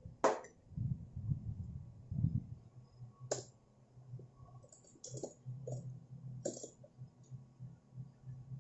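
A few sharp clicks and knocks of tableware: a ceramic bowl with a metal spoon and a drinking glass being handled and set down on a glass tabletop, over a steady low hum.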